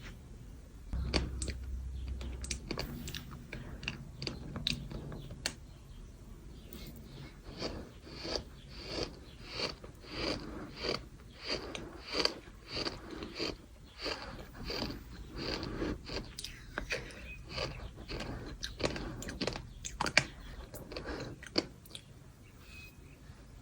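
Gritty bird sand being chewed, with crunches in an even rhythm of about two a second.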